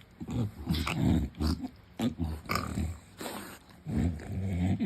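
English bulldog lying on its back, making a run of irregular pig-like grunts and snorts.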